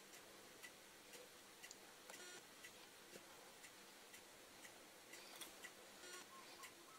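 Near silence with faint, regular ticking, about two ticks a second, like a clock.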